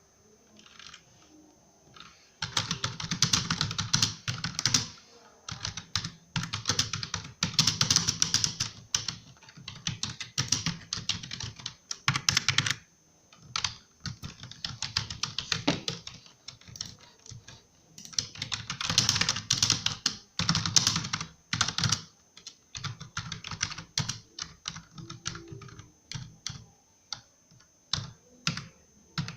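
Computer keyboard being typed on: fast runs of key clicks lasting a few seconds each, broken by brief pauses, with slower, separate keystrokes near the end.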